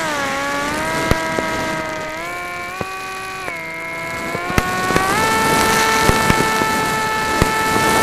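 RC flying wing's motor and propeller humming at the onboard camera, the pitch dipping and rising with throttle and settling higher after about five seconds. Several sharp pops of bursting fireworks cut through it.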